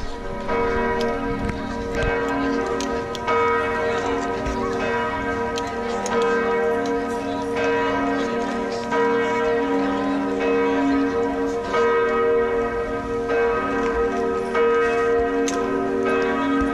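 Church bells pealing, many bells struck over and over so that their tones overlap into a continuous ringing.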